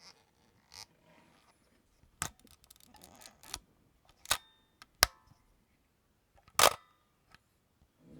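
Pentacon 35 mm film camera's shutter mechanism clicking: a series of sharp mechanical clicks, the loudest two about halfway through and about two thirds through, each with a brief metallic ring.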